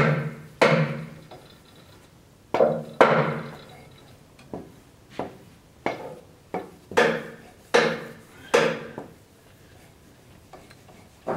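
A wooden handle being knocked into the eye of a forged steel axe head: about a dozen sharp knocks, each with a short ringing decay, irregularly spaced, with a pause of about two seconds near the end.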